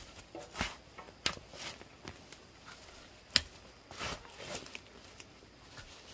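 A series of irregular knocks and scuffs, the sharpest one a little past halfway.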